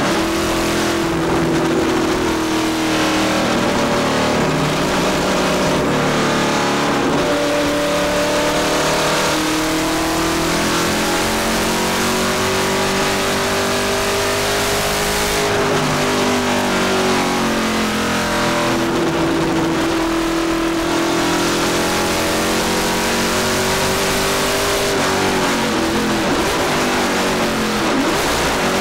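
1970 Boss 302 Trans Am Mustang's small-block V8 racing engine heard from inside the cockpit, its note climbing under acceleration and falling again as it lifts or shifts, several times over.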